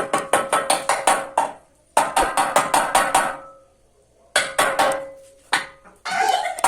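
A nail being pounded into a hard wall in quick bursts of blows, about five or six a second, each burst lasting a second or so. A ringing metallic tone runs under the blows. The wall is very hard and the nail will not go in.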